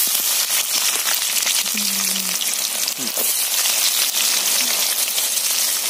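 Onions dropped into hot oil with curry leaves in an aluminium pot, sizzling steadily as they fry.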